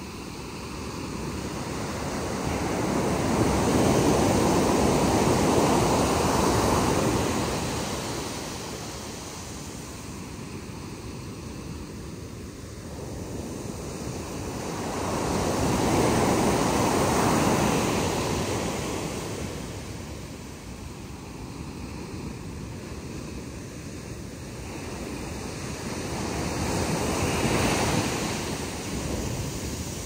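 Small ocean waves breaking at the shoreline and washing up a sandy beach. Three surges come about eleven seconds apart, with a softer steady wash of surf between them.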